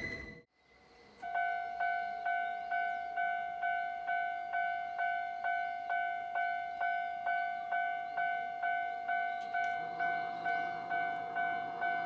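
Japanese railway level-crossing electronic warning bell ringing: an even, repeating ding a little over twice a second, starting about a second in. A faint low hum joins about ten seconds in.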